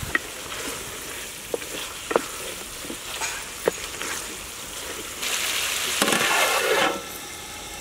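Green chicken curry simmering and sizzling in a large aluminium pot, with a ladle stirring it and knocking against the pot's side several times. About five seconds in there is a louder rush of noise for a second and a half, with a clink as the metal lid is set back on.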